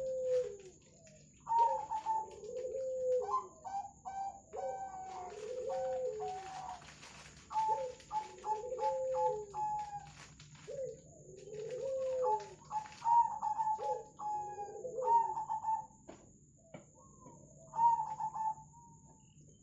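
Zebra doves (perkutut) and a spotted dove cooing over each other in repeated bouts: a run of short, clipped higher coos laid over lower, arched coo phrases. The cooing thins to a few phrases near the end.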